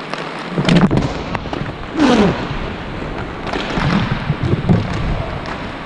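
Inline hockey play: irregular sharp clacks and knocks of sticks, puck and boards over the rumble of skate wheels on the rink floor, with a short falling cry about two seconds in.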